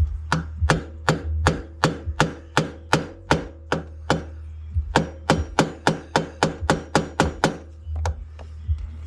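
Hammer striking a steel chisel against a motorcycle drive-chain link, knocking off a side plate to break the chain. The blows come two to three a second, each with a short metallic ring: a long run, a brief pause, another run, then one last blow near the end.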